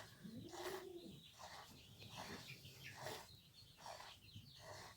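Faint, regular squirts of goat milk hissing into a bucket during hand milking, about one stroke a second. Near the start there is a single soft rising-and-falling coo from a bird.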